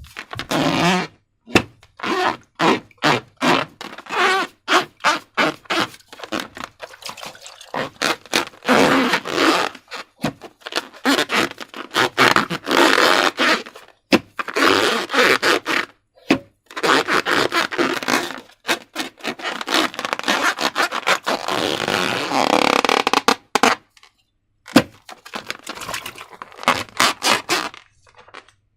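Slime being squished and worked by hand, giving wet squelches and sticky crackles in quick, irregular bursts with short pauses between them.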